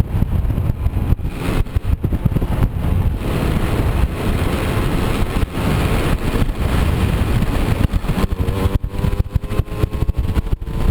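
Moped scooter engine running under way, over a heavy, uneven low rumble. During the last few seconds its pitch rises steadily as it speeds up.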